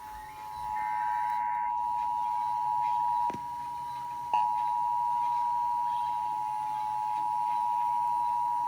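Emergency Alert System two-tone attention signal (853 and 960 Hz together), a steady dual-tone, sounding over a radio. About a second in, a burst of warbling SAME header data overlaps it. About three seconds in, the tone drops in level for about a second, then comes back with a click.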